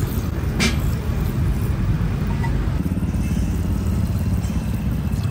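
Steady low rumble of street traffic and engine noise, with one sharp click about half a second in.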